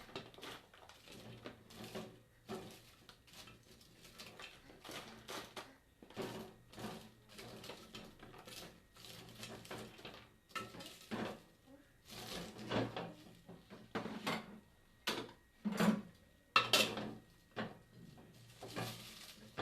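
Dishes and utensils clinking and knocking in irregular, scattered strikes, a few louder ones in the second half.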